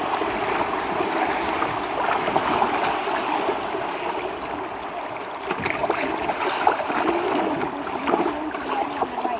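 River rapids rushing past a canoe: a steady wash of white water, with scattered short splashes in the second half.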